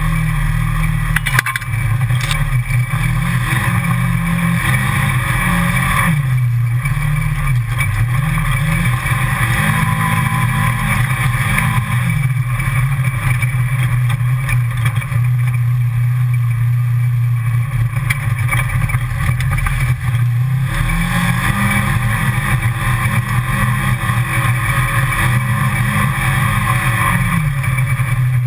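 Side-by-side utility vehicle's engine running steadily as it drives along a trail. Its note rises twice and settles back, with a single knock about a second and a half in.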